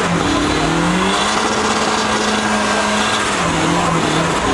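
Volvo 240 doing a burnout: the engine is held at high revs, stepping up and dropping back a little a couple of times, while the spinning rear tyres hiss and squeal on the asphalt.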